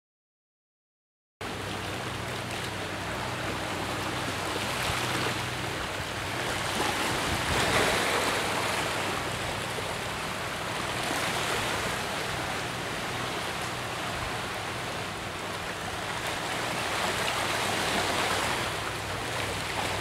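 A steady rushing noise like running water, starting abruptly about a second and a half in and swelling and easing slowly every few seconds.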